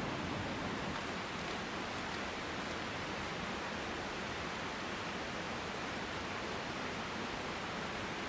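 A steady, even rushing hiss.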